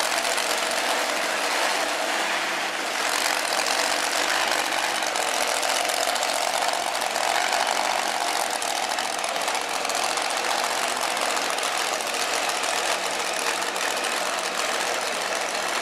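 Engine of a two-wheel-drive 2.6-ton class pulling tractor running steadily while the tractor drives slowly across the dirt track.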